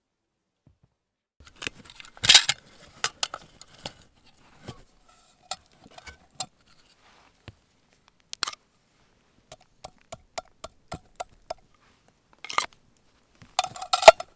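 Scattered sharp clicks and knocks, with a louder knock about two seconds in. Near the end comes a cluster of clinks as the aluminium mess tin and its wire bail handle are handled.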